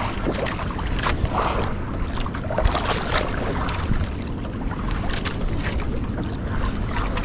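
Steady low wind rumble on the microphone aboard a small boat at sea, with irregular splashes of water.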